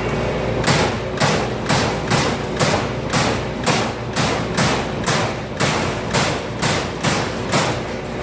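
Amada Aries 245 CNC turret punch press punching sheet metal: a regular run of sharp hits, about two a second, over the machine's steady hum. The hits begin about a second in and stop shortly before the end.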